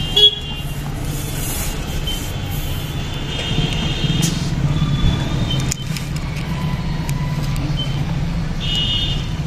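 Steady low hum of motor vehicles running nearby, with a sharp knock just after the start and a few short high squeaks.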